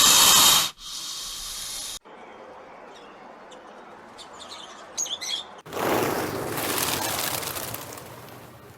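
A few short, high bird chirps about five seconds in, over quiet outdoor background. Before and after them come stretches of loud rushing noise, the last one fading away.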